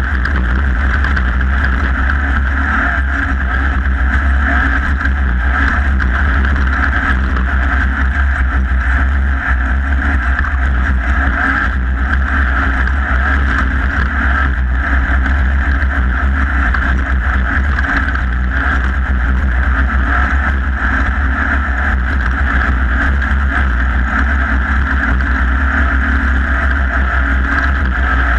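Off-road race vehicle heard on board at racing speed: a steady loud engine drone over a heavy rumble of wind and terrain noise.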